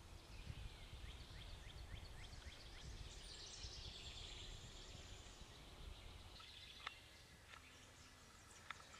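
Faint woodland birdsong, a quick series of chirps and then higher twittering, over a low background rumble, with two sharp ticks near the end.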